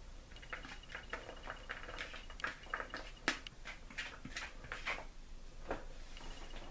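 Cooked rice being scraped and tipped out of a bowl into a mixing bowl of meat filling: a run of soft, irregular scrapes and taps, with one sharper tap about three seconds in.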